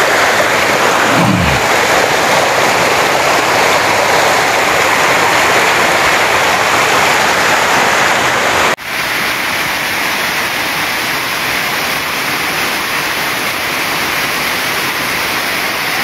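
Shallow mountain stream rushing and splashing over rocks, a loud steady rush. About nine seconds in it breaks off sharply and resumes as another stretch of rushing water, a little quieter.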